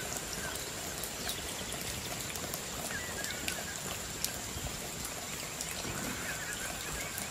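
Outdoor ambience: an even, steady hiss with a thin high-pitched whine, and a few faint bird chirps scattered through it.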